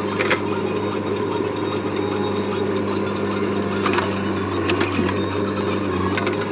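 JCB backhoe loader's diesel engine running steadily, a low even hum with a rapid light ticking over it. A few sharp metallic clanks come through, one near the start and several in the second half.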